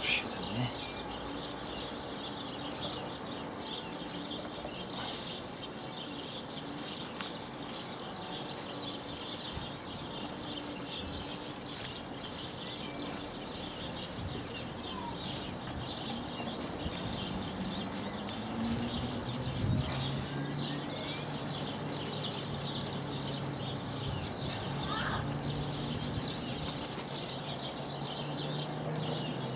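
Many birds chirping continuously, over a low steady hum that grows louder about two-thirds of the way through.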